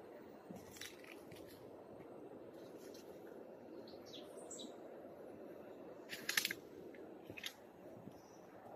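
Faint outdoor ambience: a steady low rush with short bird chirps scattered through it, the loudest cluster about six seconds in.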